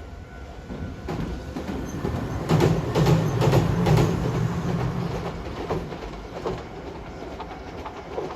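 A train passing close by, its wheels clicking over the rail joints under a low running hum. It grows louder about a second in, is loudest around three to four seconds in, then fades away.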